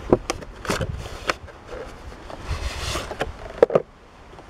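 Cardboard packaging handled by hand: a paperboard inner tray slid out of its box, with scattered taps and clicks, a scraping rustle about two and a half seconds in, and two sharp clicks near the end.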